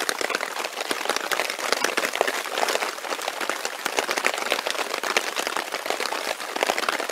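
Heavy rain pattering steadily on a hammock tarp overhead, a dense crackle of drops.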